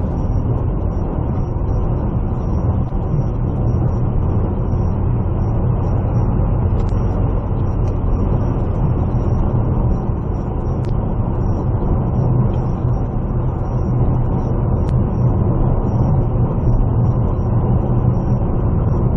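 Steady low rumble of a road vehicle driving along, engine and tyre noise with no change in pace.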